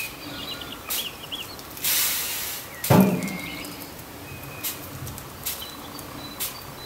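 Small birds chirping in the background, with handling sounds from shaping dough on a cling-film-covered board: a rustle about two seconds in, a sharp tap about three seconds in, and a few light clicks.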